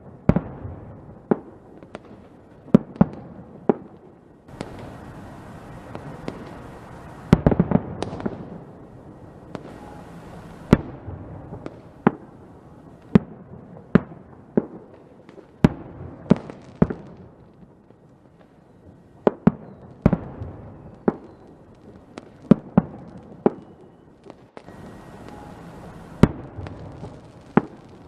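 Fireworks going off: sharp bangs at irregular intervals, some close together in quick clusters, with stretches of hissing between them.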